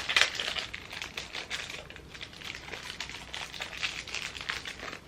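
Mystery pin box packaging being opened and handled by hand: rapid crinkling and clicking that thins out near the end.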